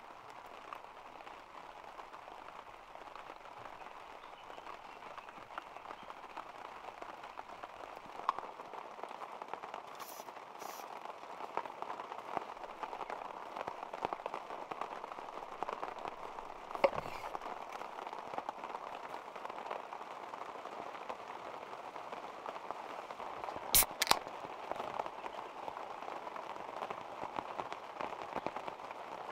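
Steady rain pattering down, a dense patter of small drops. A few sharp clicks stand out over it, the loudest a quick double click a little after the middle.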